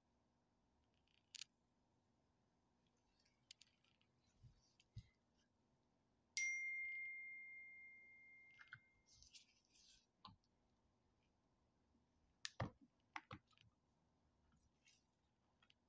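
Quiet handling of small decorating tools and plastic containers: a few faint clicks and taps, and one clear ringing ding about six seconds in that fades away over a couple of seconds.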